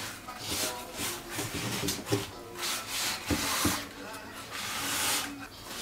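Rubber-gloved hands scrubbing a gritty paste over the bottom of a burnt frying pan: an uneven rasping rub in irregular strokes.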